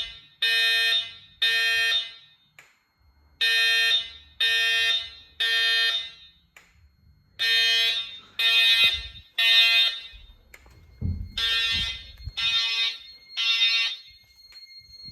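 EST Genesis speaker strobes sounding the temporal-three evacuation tone between voice messages of an EST voice-evac system. The pattern is three even, buzzy beeps about half a second each, then a pause, repeated about four times.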